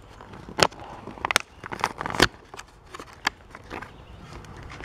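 Clear plastic packaging and a cardboard box being handled by hand as a toy figure's small helmet is picked out: an irregular run of sharp clicks and crinkles.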